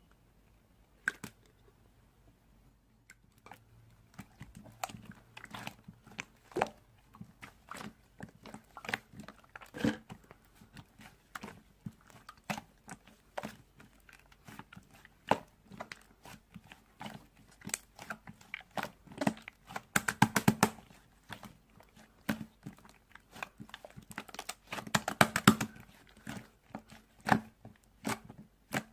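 Two-layer slime being squeezed and pressed by hand, making a steady run of sharp wet clicks and pops. There are denser bursts of crackling about two-thirds of the way in and near the end.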